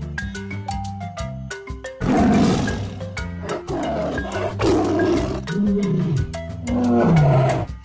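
Tiger roaring about four times, each roar rough and falling in pitch, starting about two seconds in, over light marimba music.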